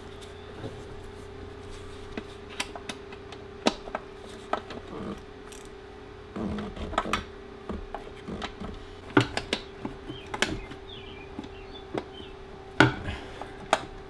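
Hand tools working at the screws of a golf cart's air box: irregular clicks and knocks, some in quick clusters, over a steady hum.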